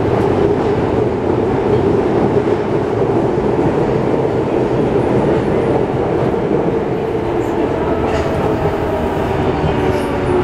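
Cab-interior running noise of a Yokohama Municipal Subway 3000A train at speed in the tunnel: a steady, loud rumble of wheels on rail. Near the end, faint whining tones from its Mitsubishi GTO-VVVF inverter begin to come through.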